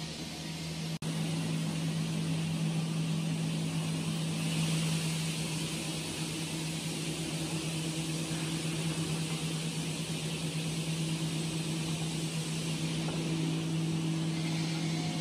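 Steady machinery hum with an even hiss over it, typical of stone-working machines running in a granite workshop; the sound drops out for an instant about a second in.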